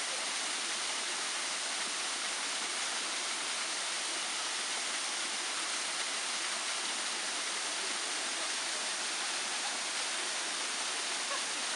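Small waterfall spilling down a rock face: a steady, unbroken rush of falling water.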